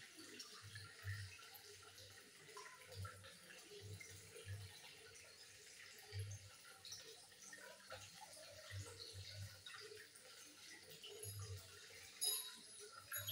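Near silence: quiet ambience with faint, irregular soft low thumps and scattered light ticks, and a short cluster of sharper ticks near the end. There is no cat calling.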